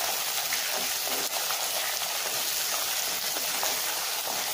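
Chopped onion, garlic, chana dal and dried red chillies sizzling in hot oil in a clay pot as they are stirred with a wooden spatula: a steady hiss.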